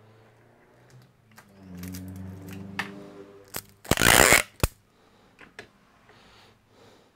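Handling noises at a repair bench: scattered clicks, then a loud rasping crunch lasting about half a second, about four seconds in.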